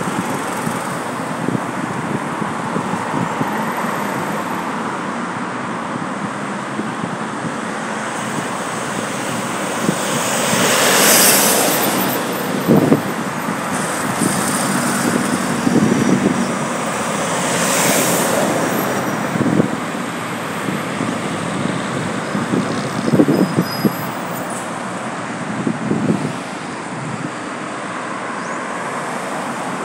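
Road traffic on a multi-lane city avenue: cars driving past close by, a steady tyre-and-engine rush that swells and fades twice loudly, about a third of the way in and just past the middle. A few short thumps are heard in the second half.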